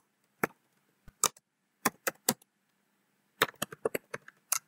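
Computer keyboard keystrokes: single key presses spaced out at first, then a quicker run of taps about three and a half seconds in.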